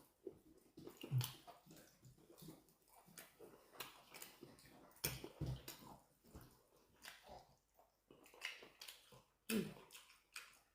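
Chewing and eating sounds, with scattered short clicks and a few soft knocks of food and dishes being handled.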